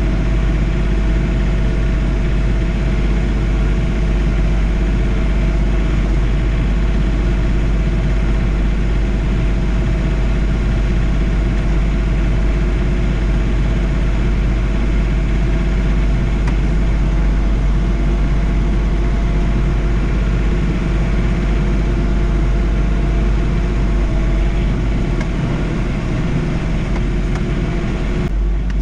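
John Deere 3046R compact tractor's three-cylinder diesel engine running steadily at a constant speed.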